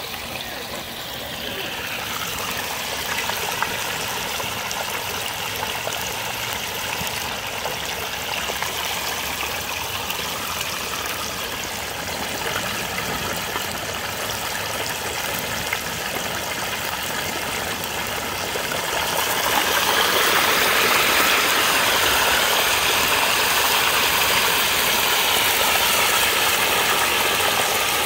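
Whole turkey deep-frying in a pot of hot oil, the oil bubbling and sizzling steadily; it gets louder about two-thirds of the way through.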